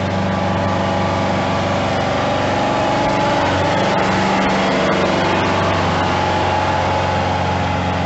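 Kubota compact tractor's diesel engine running steadily as the tractor drives past close by on a gravel track.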